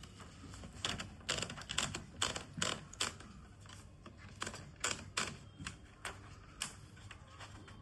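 Olympia Traveller Deluxe manual portable typewriter being typed, with irregular sharp key clacks at roughly two a second and a short pause about halfway through.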